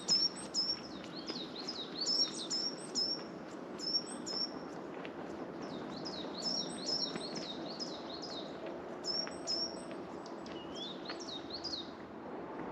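A small songbird singing quick, high chirping phrases with short pauses between them, stopping about a second before the end.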